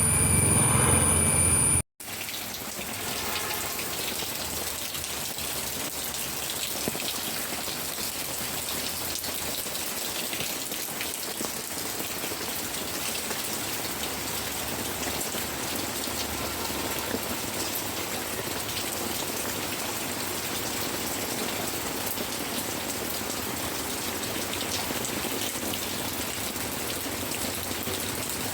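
A louder sound with a few steady tones cuts off abruptly about two seconds in. A steady, even hiss like rain or running water follows, with a few faint clicks.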